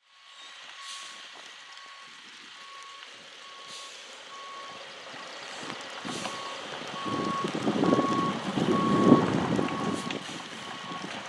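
A truck's reversing alarm beeping steadily, a little faster than once a second, over the truck's diesel engine as it backs up, the engine growing louder from about halfway through.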